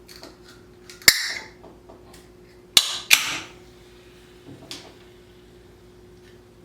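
Pull tab of a can of cherry Coca-Cola being worked open: a sharp click about a second in with a short hiss, then another sharp pop near three seconds followed by a burst of hissing as the carbonated can opens. A few fainter clicks follow.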